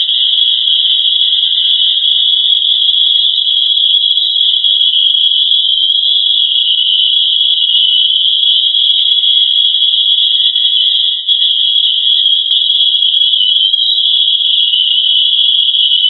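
A loud, high-pitched trilling drone, held steady without a break. It is the recording presented as NASA's sound of the Earth's vibration, which the uploader likens to birdsong.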